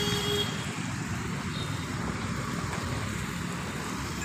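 Steady outdoor background noise: a low, uneven rumble with an even hiss over it.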